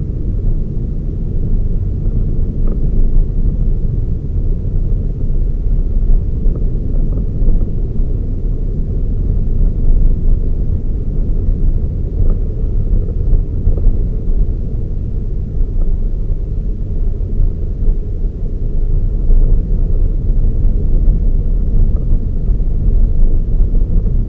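Toyota Raize compact SUV being driven: a steady low rumble of engine and road noise, with no revving or gear changes standing out.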